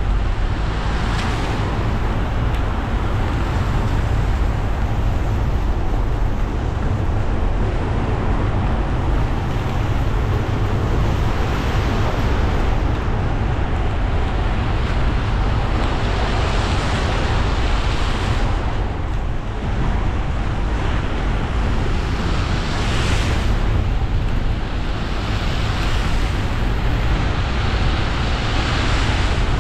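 A car driving on wet roads in rain: a steady low engine and road rumble under a continuous hiss of tyres on water, the hiss swelling briefly several times.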